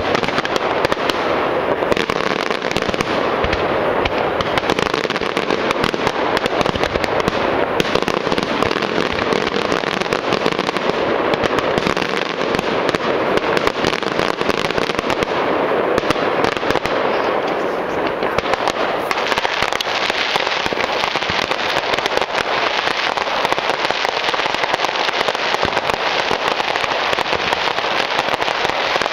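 Aerial fireworks display: a dense, unbroken stream of bangs and crackles, many shells bursting in quick succession with no pauses.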